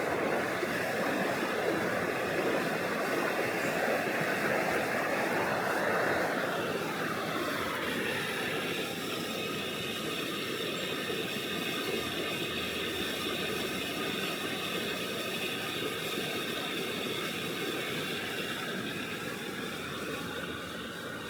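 River water rushing steadily. About six seconds in, a passing mechanical sound drops in pitch, then settles into a steady drone of several tones over the water.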